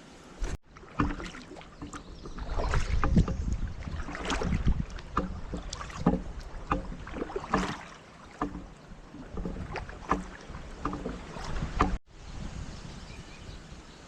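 Kayak on the water: irregular splashes and knocks against the hull.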